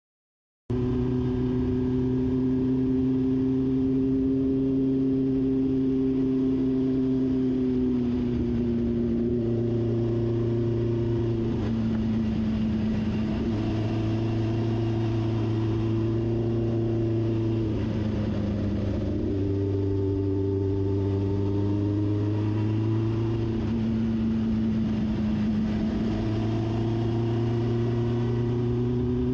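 1973 Honda CB750's air-cooled inline-four engine running under load as the motorcycle is ridden uphill. The engine note holds steady for stretches, dips in pitch a few times and climbs again.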